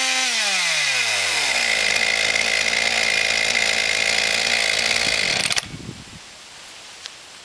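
Husqvarna 242 two-stroke chainsaw held at full revs with the chain spinning free. The throttle is released and the pitch falls away to a rough idle. It idles for about four seconds, then cuts off abruptly as it is switched off.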